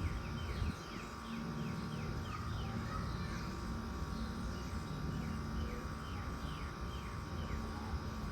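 Old central air conditioner outdoor units running with a steady hum and rumble. Over it, birds chirp in two runs of quick downward-sliding notes, one early and one near the end.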